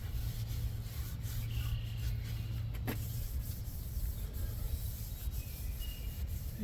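Rusty steel on a sawmill being scrubbed by hand with a gentle abrasive, a steady rubbing that only takes off the high spots of the rust, over a low steady hum. A single click comes about three seconds in.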